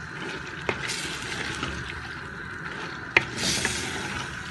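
Spoon stirring green beans and minced meat in a clay cooking pot: scraping, with a couple of sharp knocks of the spoon against the pot, one under a second in and one past three seconds.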